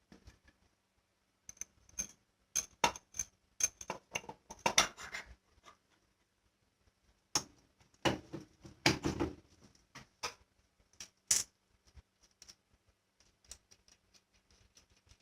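Irregular metallic clicks, knocks and clinks of small hard parts being handled, coming in scattered clusters with quiet gaps between, busiest in the middle.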